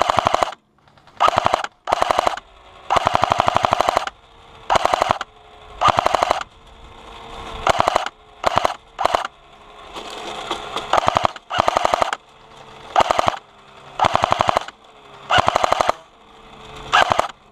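Battery-powered airsoft light machine gun firing about a dozen short bursts of rapid full-auto shots, with brief pauses between bursts.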